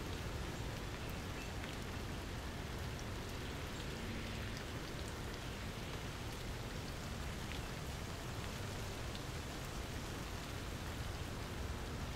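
Steady rain falling, with scattered sharper drop ticks over an even hiss and a low rumble underneath.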